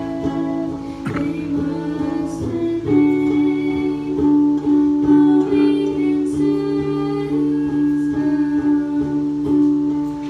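Acoustic guitars strumming, with a boy singing long held notes over the chords.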